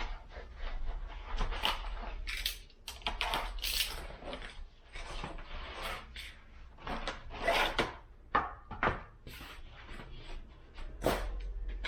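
Wooden poles and parts being handled and fitted together: irregular wooden knocks, clicks and short rubbing scrapes.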